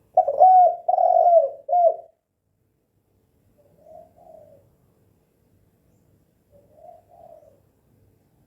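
Spotted dove (tekukur) cooing: one loud phrase of a few coos over about two seconds, then two much fainter coo phrases later on.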